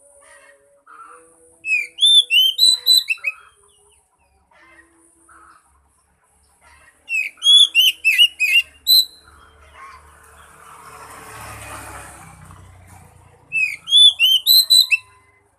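Oriental magpie-robin (kacer) singing: three loud bursts of quick, rising whistled notes, with a soft rushing swell between the second and third.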